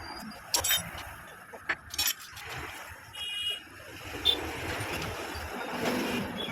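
Sharp metallic clinks and taps from hand tools and parts while a timing chain is fitted to a motorcycle engine, over steady background street noise, with a short tonal beep about three seconds in.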